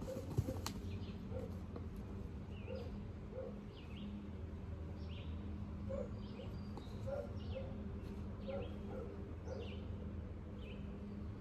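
Birds chirping in short, repeated calls about once a second over a steady low hum, with one sharp click about half a second in.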